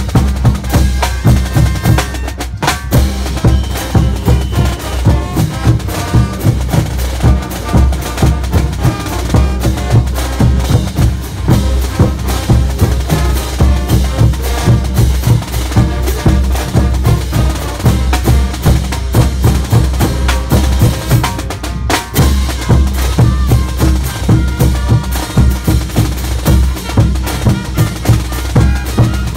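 Brass band playing. Big bass drums, a snare drum and crash cymbals keep a steady beat under the trumpets.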